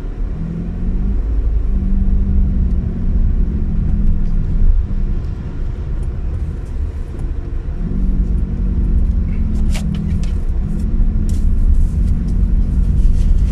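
A car being driven, heard from inside the cabin: a loud low rumble of road and engine, with a steady low hum that drops out for a few seconds in the middle.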